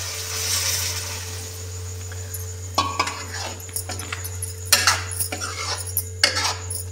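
Water poured into a kadhai of frying bitter gourd and chickpeas, an even splashing hiss. From about three seconds in, a metal ladle stirs the curry, scraping and clinking against the pan many times.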